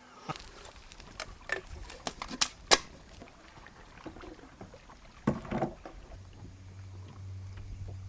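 Sharp knocks and clicks of fishing gear handled in a boat, several in the first three seconds and another cluster about five seconds in; a low steady hum starts about six seconds in.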